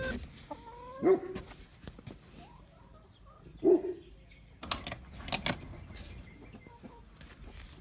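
Two short, loud animal calls, one about a second in and one just under four seconds in, followed around five seconds in by a brief cluster of clicks and a metallic rattle.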